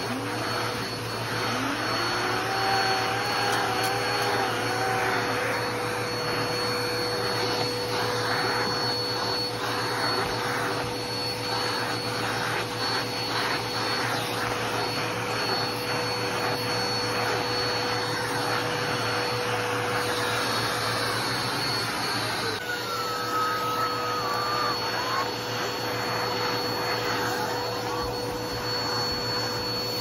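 Vacuum cleaner running steadily with a constant motor whine while its hose nozzle is drawn over fabric sofa cushions and into the gaps between them. A couple of brief wavering whistles rise out of the airflow, near the start and about two-thirds through.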